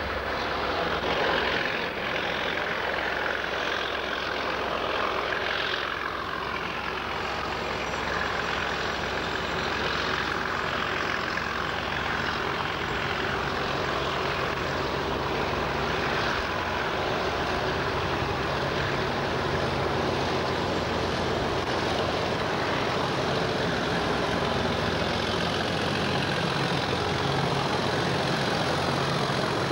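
English Electric Class 37 diesel-electric locomotive hauling a freight train slowly past, its engine running with a steady low drone over the rumble of wheels on the rails.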